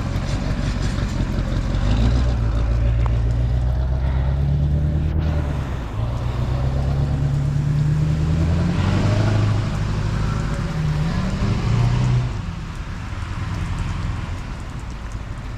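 A motor vehicle's engine running close by for about ten seconds, its note shifting and rising near the end before it fades, over a steady hiss.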